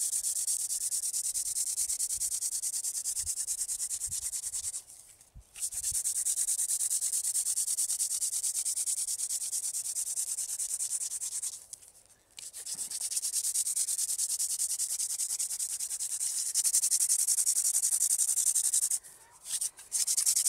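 Dry cattail-stalk hand drill spinning back and forth in a wooden fireboard's notched socket: a continuous dry friction hiss as the stalk grinds hot dust toward an ember. It is broken by short pauses about five, twelve and nineteen seconds in, and grows louder near the end.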